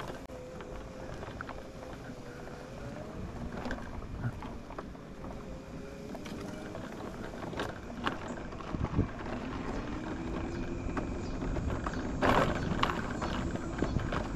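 A vehicle is driving along, with a steady hum whose faint pitch drifts slowly as the speed changes. There are scattered knocks and rattles, and the loudest cluster comes about twelve seconds in.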